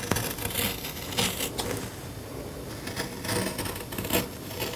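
Orange-handled sewing scissors snipping across fabric in a series of short, unevenly spaced cuts along a marked line.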